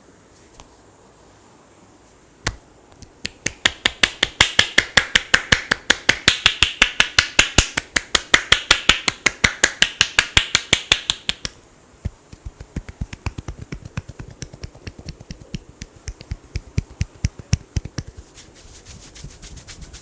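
Hands striking a person's head in a rapid rhythmic run of sharp slaps during an Indian head massage, about six a second. The strikes are loud for several seconds, then go on lighter and softer from about halfway, and stop a little before the end.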